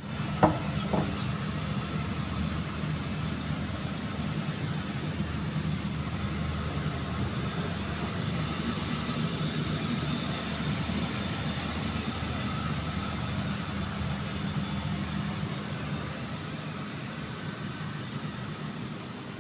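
Jacuzzi heat pump running: a steady mechanical hum with a faint high whine. Two short knocks come in the first second.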